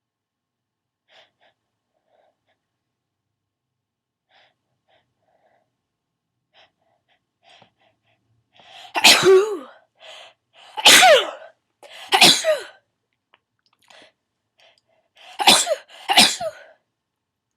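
A person sneezing five times in a fit, after several quiet seconds with only faint short breaths; the last two sneezes come in quick succession.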